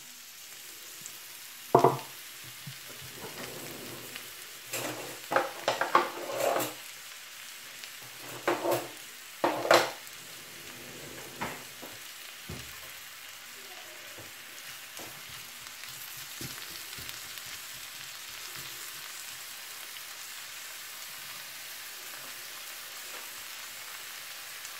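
Sliced onions sizzling in hot oil in a frying pan, a steady high hiss. Sharp metal knocks and scrapes against the pan come in the first ten seconds, the loudest about two seconds in, then only the sizzle goes on.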